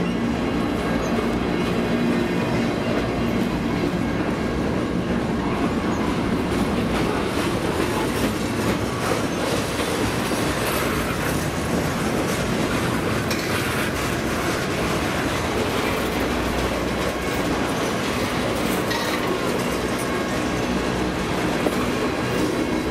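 Freight train cars rolling past at close range: a steady rumble and clatter of steel wheels on the rails.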